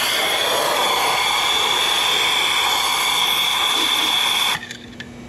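Compressed-air blow gun hissing loudly with a steady whistle as it blasts into a spark plug hole to clear water from a hydrolocked engine's cylinder; the air cuts off sharply about four and a half seconds in.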